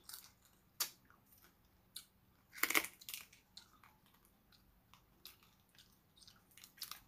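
Boiled crab shells and legs cracked and pulled apart by hand, with close-up eating sounds: a scatter of short cracks and snaps, the loudest a little under three seconds in.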